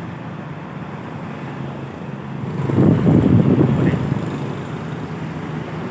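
Tour bus passing close by. Its engine and tyre noise swells to a peak about three seconds in, then fades away.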